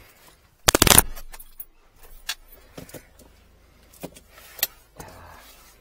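A vehicle's driver door slammed shut about a second in, followed by light clicks and rattles of keys and handling in the cab and a faint steady low engine hum.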